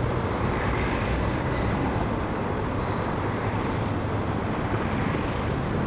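Steady low engine rumble under an even rushing noise, from a motor superyacht's engines and propeller wash as it manoeuvres out of harbour.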